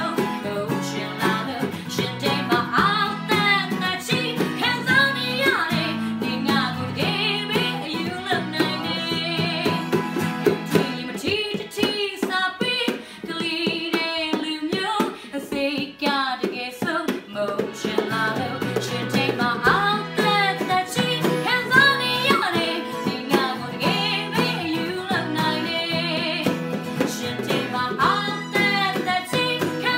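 A woman singing a song live, accompanied by a strummed acoustic guitar, keyboard and hand-tapped box percussion.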